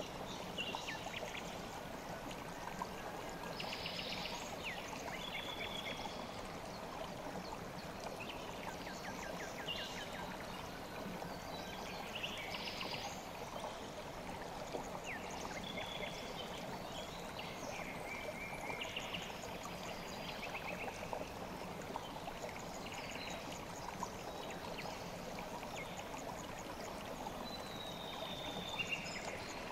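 A river stream flowing steadily over its bed. Short bird chirps, whistles and trills come and go above the water throughout.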